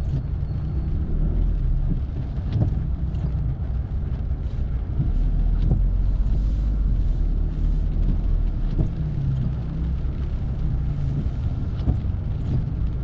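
Inside a moving car's cabin on a wet road in the rain: a steady low rumble of engine and road noise. A faint short tick comes about every three seconds.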